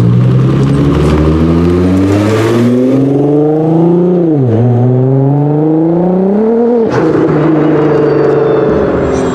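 Nissan GT-R engine accelerating hard: its note climbs, drops briefly about four and a half seconds in at a gear change, climbs again, then falls sharply near seven seconds in and settles to a steadier lower note.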